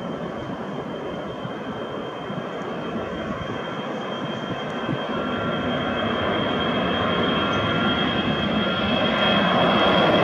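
Ilyushin Il-76's four Solovyov D-30KP turbofans at takeoff power during the climb-out, growing steadily louder as the aircraft comes toward the listener, with a steady high whine over the jet noise.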